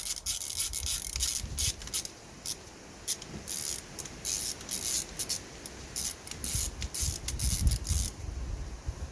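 Socket ratchet clicking in irregular short bursts as a glow plug is unscrewed from a 1.9 TDI diesel's cylinder head, with low knocks from handling the tool.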